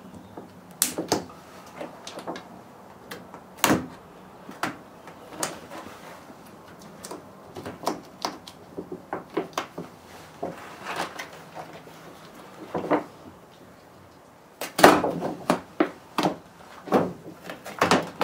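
Irregular clicks and knocks of parts being handled against the bare sheet-metal inner frame of a Ford Transit van's sliding door, with a busier run of louder knocks near the end.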